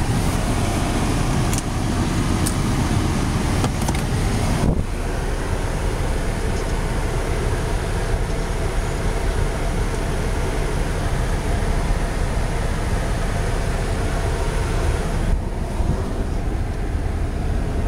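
Car engine idling with a steady running noise, heard from inside the cabin, with a few light knocks from the phone being handled in the first few seconds.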